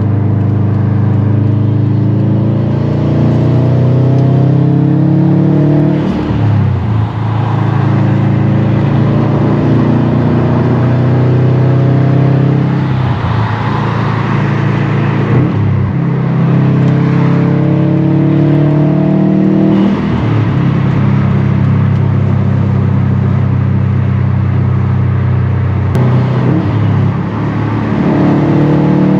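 Stage 2 tuned 2018 Subaru WRX STI's turbocharged flat-four engine pulling hard through the gears, its note rising in pitch in each gear and dropping at each of several upshifts.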